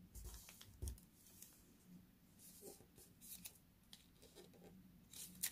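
Faint rustling and soft crinkles of a sheet of colour paper being folded over and pressed flat by fingers, in a few scattered short touches.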